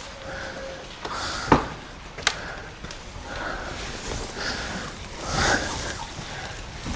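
Rustling of nest bedding and two sharp knocks about a second and a half and two seconds in, like eggs set down while collecting from nest boxes, with hens clucking softly now and then.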